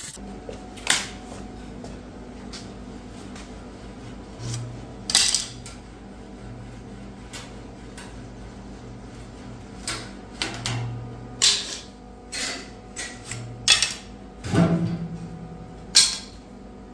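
Scattered metallic clinks and knocks from steel hinge and door parts of a smoker firebox being handled. They come irregularly, a dozen or so, the loudest near the end.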